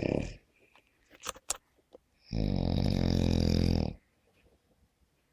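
Snoring: one long loud snore a couple of seconds in, lasting about a second and a half, with a few faint clicks just before it and the tail of the previous snore fading right at the start.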